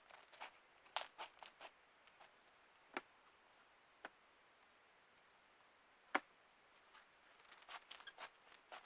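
Faint crackling clicks from crunchy slime being handled and squeezed. A quick run of clicks comes in the first two seconds, single sharper clicks about three, four and six seconds in, and another run near the end.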